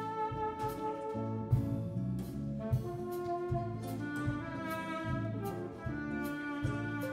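A small instrumental band playing live: an alto saxophone carries the melody in long held notes over electric guitar, bass and drums, with regular drum and cymbal hits.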